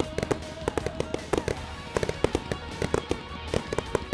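Fireworks going off in rapid, irregular bangs and cracks, several a second, over the pyromusical's music soundtrack.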